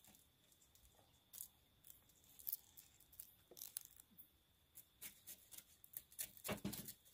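Faint scattered clicks and scrapes of a metal spatula against a smoker's wire grill as smoked fish is lifted off and set on a wooden chopping board. The taps come closer together in the last couple of seconds.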